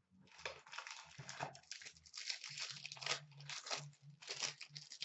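Wrapper of a trading card pack crinkling and tearing as it is opened by hand: a run of faint, irregular crackles.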